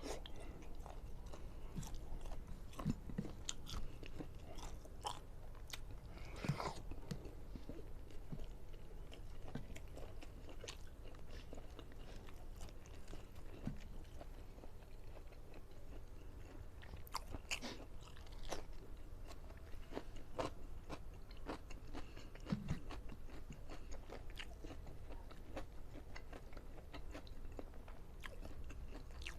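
Close-miked chewing and biting of food, with irregular wet clicks and occasional crunches.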